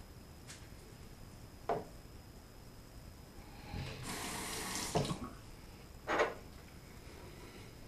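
Bathroom sink tap running for about a second, a bit under four seconds in, with a few short clunks before and after it.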